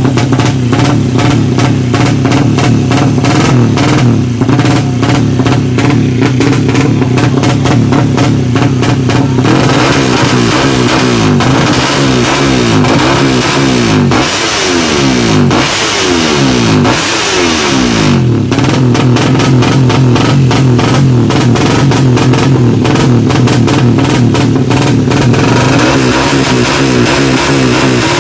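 Tuned 200cc drag-racing motorcycle engine running and revving, with three quick rev blips rising and falling about halfway through, over background music.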